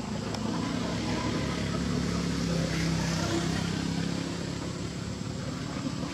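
A motor vehicle's engine running, growing louder through the middle and easing off again, as it passes.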